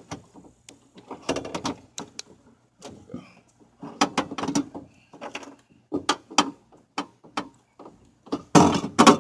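Irregular clanks, knocks and rattles of metal parts as a power window regulator and the door's window hardware are worked into place inside a car door, loudest near the end.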